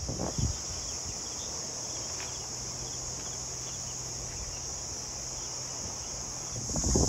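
Steady, high-pitched chorus of insects in the coastal scrub, a continuous shrill drone that does not pause.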